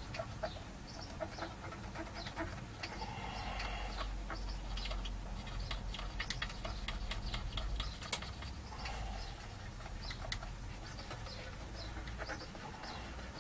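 Swab scrubbing over the solder side of a printed circuit board, a scratchy rubbing with many small clicks and short squeaks, as leaked capacitor electrolyte is cleaned off.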